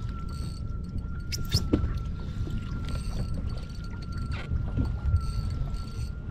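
Fishing reel being wound in short spells against a bent rod while a fish is played from a kayak, over a low rumble of sea water around the hull. A thin steady high tone runs underneath.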